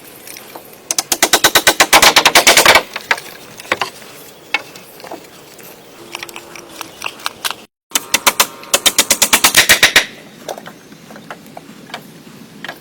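Two bursts of rapid sharp knocking, about ten strikes a second, each lasting about two seconds, with scattered single clicks and knocks between them.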